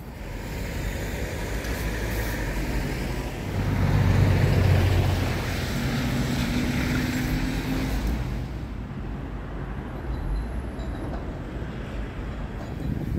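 Road traffic on a city street: motor vehicles driving past, with one passing close and loudest about four seconds in, its low engine hum fading after about eight seconds.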